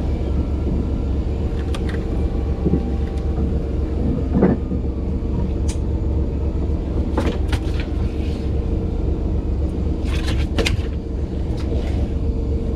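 Fishing boat's engine running steadily with a low drone, with scattered clicks and knocks on deck.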